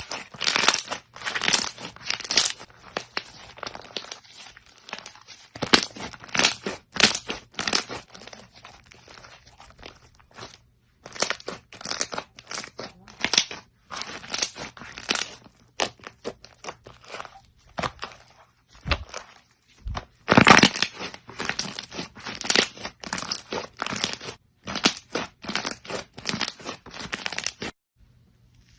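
Crunchy slime being squished and pressed: dense, irregular crackling and popping in bursts, with short pauses between them.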